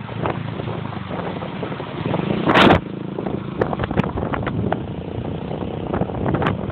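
A car driving, with a steady rumble and many small knocks and rattles. A short loud rush of noise comes about two and a half seconds in.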